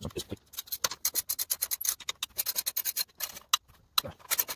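Socket ratchet clicking in quick runs of sharp clicks, with short pauses between strokes, as a bolt on the minibike engine's side plate is turned.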